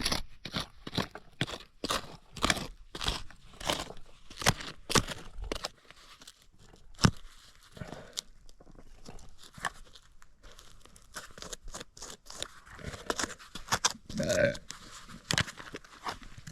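Repeated crunching strokes of a tool digging into dirt and clay, about two a second at first, sparser in the middle, then quicker again in the last few seconds.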